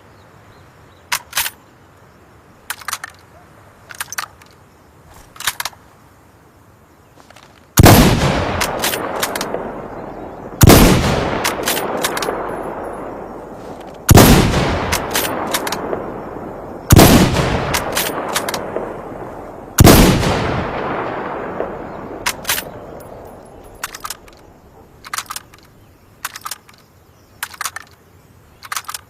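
Mosin Nagant bolt-action rifle (7.62×54R) firing five shots about three seconds apart, each followed by a long echoing tail. A scatter of light clicks comes before and after the string of shots.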